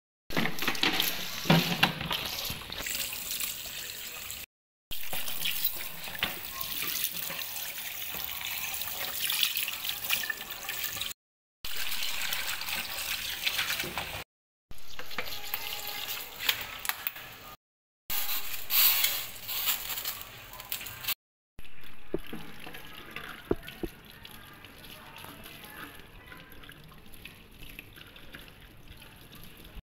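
Kitchen tap water running into a stainless steel sink while a raw whole chicken is rinsed and rubbed by hand in a plastic colander, then leafy greens are rinsed under the stream. The water sound drops out for a moment several times and is softer for the last several seconds.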